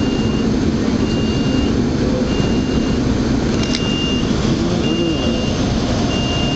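An electronic warning beeper sounding a steady high beep about every second and a quarter, each beep lasting under a second, over a loud continuous rumble of vehicle noise. A single sharp click comes about halfway through.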